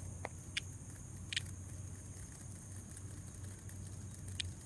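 Steady high-pitched chorus of calling insects over a low hum, with a few brief high chirps, one about a second in and one near the end.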